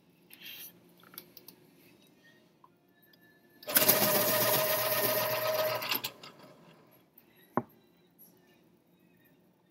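A small machine whirs loudly for about two and a half seconds, starting about four seconds in and stopping abruptly. A single sharp click follows about a second and a half later.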